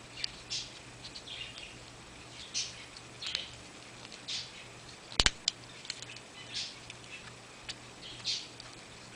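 Hands handling packaging and small parts while unboxing: short rustles and scrapes every second or so, with one sharp click a little past halfway.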